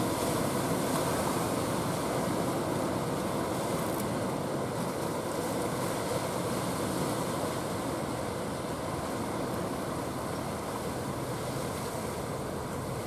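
Rough sea surf breaking and churning without pause, a steady wash of noise that eases slightly toward the end, with wind.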